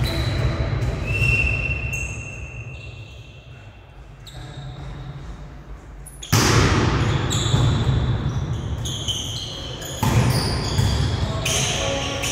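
Volleyball being played in an echoing sports hall. The ball is struck hard about six seconds in and again about ten seconds in, each hit ringing on in the hall, with short shoe squeaks on the court floor between.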